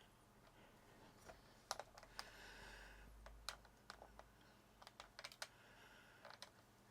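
Quiet, irregular clicks of keys being pressed on a Commodore 64 keyboard, as the computer is tested after its keycaps have been refitted.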